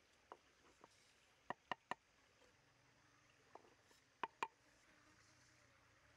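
Light wooden knocks as a wooden ladle taps against a wooden mortar while salt and ground pepper are tipped in. There is a quick run of three taps about a second and a half in, a pair just past four seconds, and a few fainter ticks between, over near silence.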